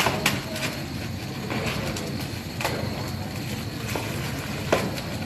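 A spoon stirring food in a large aluminium cooking pot, knocking sharply against the metal a few times, over a steady low rushing noise.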